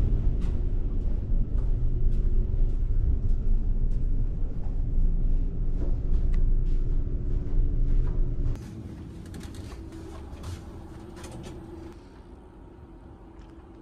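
Deep, steady rumble and hum of a moving car ferry's engines and machinery, heard from inside the ship, with a few faint clicks. It is loud at first, then drops sharply about two thirds of the way through, and a little more near the end.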